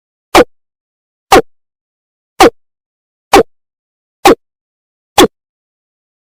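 Watercock calling: a series of short notes repeated about once a second, six in all, with complete silence between them.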